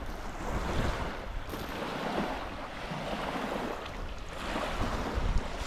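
Wind gusting over the microphone, a rushing noise that swells and eases, with heavier low buffeting near the end.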